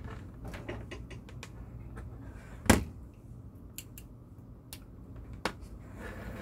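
A USB cable being handled and plugged into a laptop: scattered small clicks and knocks of plastic plugs and cable, with one sharp loud knock nearly three seconds in.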